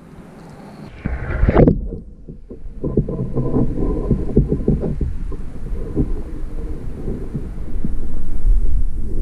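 A camera going under the surface of a shallow stream: a short splash about a second and a half in, then the muffled underwater sound of the current, a low rumble with many scattered clicks and knocks that grows louder near the end.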